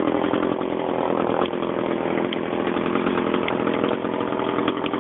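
Chainsaw engine running at a steady speed, with scattered small ticks over it.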